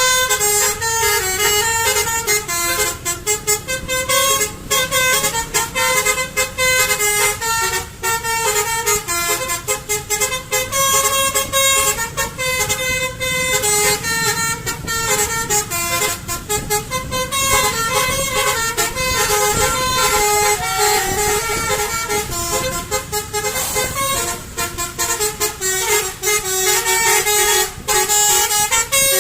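Indonesian bus's multi-tone 'telolet' horn playing a fast melody of short notes that step up and down, with a low rumble beneath.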